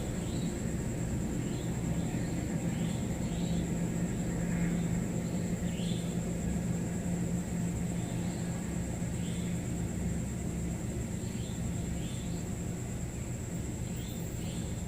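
Steady low hum and rumble of background noise, with a thin high whine above it and faint short chirps repeating irregularly, about one a second.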